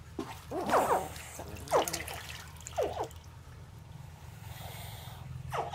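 Young crocodiles chirping: short high calls that fall in pitch, three about a second apart and one more near the end.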